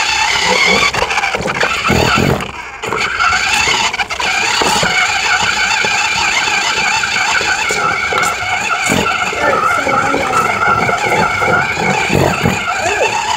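Toy RC car's small battery-powered electric motor whining steadily while driving, with rattling and scattered knocks from the wheels and plastic body over the ground, heard very close from a camera mounted on the car's bumper.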